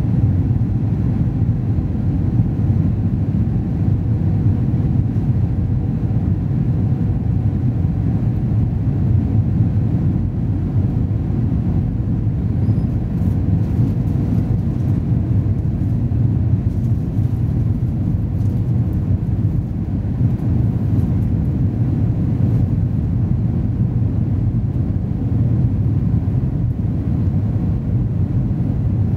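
Airbus A321 cabin noise heard from a window seat over the wing on approach: a steady low roar of the engines and rushing air, with a faint steady hum above it.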